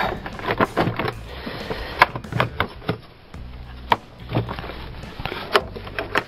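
Plastic air filter box of a Peugeot 307 being worked loose by hand: irregular plastic knocks, clicks and rattles, with sharp clacks about two, four and five and a half seconds in.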